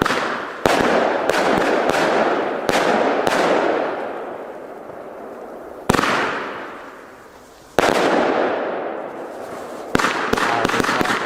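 Consumer firework battery firing: a series of sharp bangs a second or two apart, each followed by a noisy burst that fades out, with a quick run of cracks near the end.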